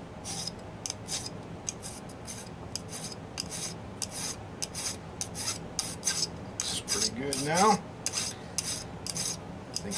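Hand file rasping back and forth on a white metal HO scale locomotive frame in quick strokes, about three a second, to level the metal. A brief rising squeal-like tone comes about seven and a half seconds in.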